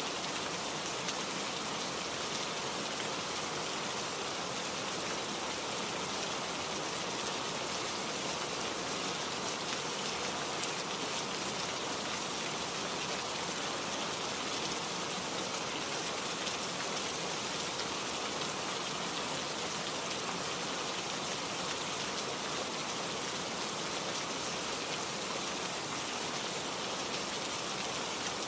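Steady rain falling on a surface, an even hiss with fine pattering of drops that does not let up.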